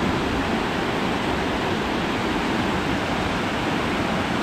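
Mountain river water rushing steadily through a narrow, steep rapid.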